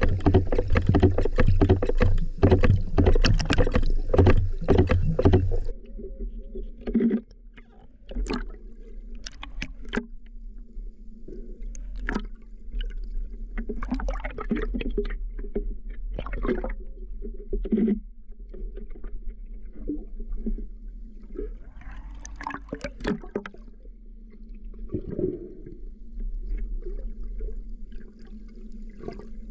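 Sounds of a boat on the water: loud wind and motor noise for about the first six seconds, which cuts off suddenly. After that come quieter water splashes and scattered knocks against the boat over a low hum.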